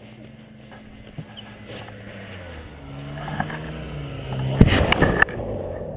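Snowmobile engines running, growing louder with small rises and falls in pitch, with a brief loud rush of noise a little before the end.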